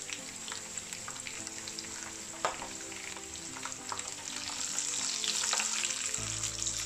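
Almonds, cashews and raisins sizzling in hot ghee in a non-stick frying pan, stirred with a metal spoon that clicks against the pan. The sizzle gets louder from about two thirds of the way in.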